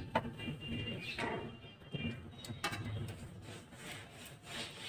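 Faint kitchen handling sounds: a few light clicks and soft rustles as a hand sprinkles raisins into a steel pot of rice pudding.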